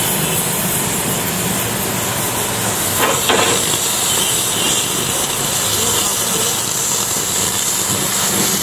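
Oxy-fuel gas cutting torch hissing steadily as it flame-cuts a steel plate, with a brief louder burst about three seconds in.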